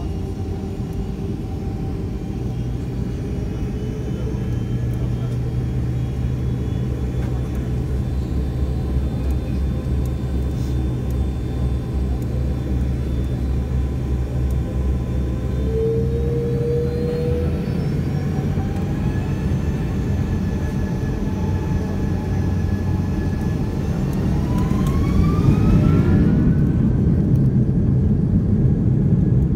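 Boeing airliner's jet engines during takeoff: a steady low rumble, with whining tones that rise in pitch from about halfway through as the engines spool up, and a heavier, louder rumble near the end.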